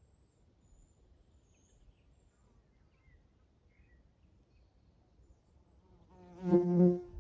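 Quiet forest background with a few faint bird chirps, then about six seconds in a flying insect buzzes loudly past the microphone for about a second, its wingbeat hum wavering as it passes.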